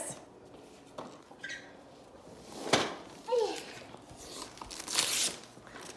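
Wrapped gift boxes being handled, their paper rustling, with a sharp knock a little under three seconds in and a brief falling voice sound just after it.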